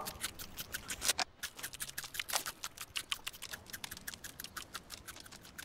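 Termites gnawing through wood: a fast, irregular run of dry crunching clicks, many per second.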